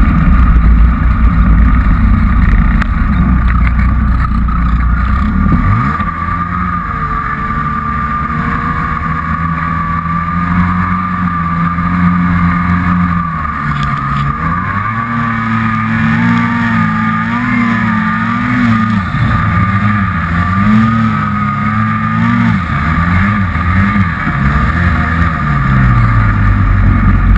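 Turbocharged Polaris Dragon snowmobile engine running under way, heard from the handlebars with a low wind rumble over it for the first few seconds. The engine pitch holds steady, then from about halfway rises and falls again and again as the throttle is worked, over a steady high whine.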